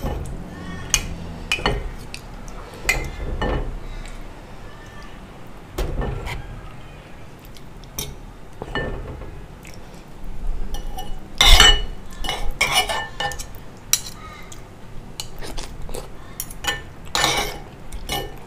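A metal spoon and fork clinking and scraping against bowls while eating soup and rice: irregular short clinks, a few ringing briefly, the loudest about two-thirds of the way through and near the end.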